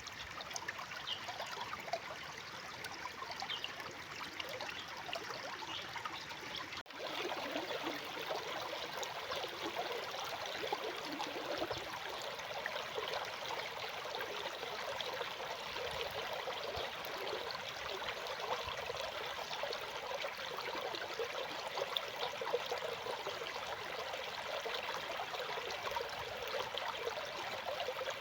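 A stream's water running and trickling steadily. It cuts out for an instant about seven seconds in, then goes on fuller and lower-pitched.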